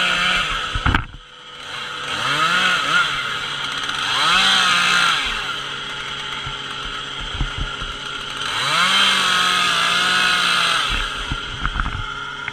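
Chainsaw engine running and being revved up and back down several times, its pitch rising and falling, with a brief drop in level about a second in.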